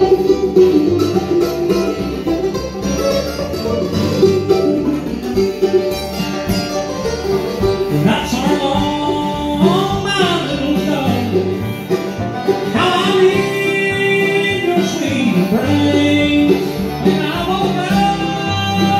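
Live bluegrass band playing: mandolin, acoustic guitar, banjo and upright bass, with singing in the second half.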